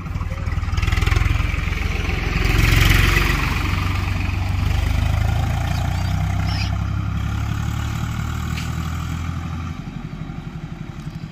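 A tractor engine running as it drives past on the road, loudest in the first few seconds and fading as it pulls away, dropping off near the end.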